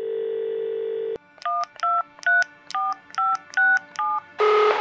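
Telephone line sounds: a steady dial tone for about a second, cut off by a click, then seven touch-tone keypad beeps in steady succession, whose tone pairs match the keys 1 through 7 in order. A short, louder buzzy tone follows near the end.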